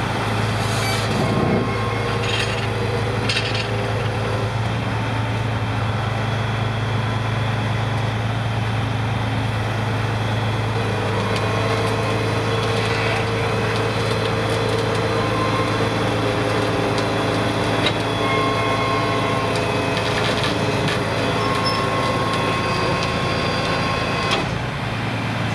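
Diesel engine of a heavy tri-axle tow truck running at a steady speed, a constant low drone.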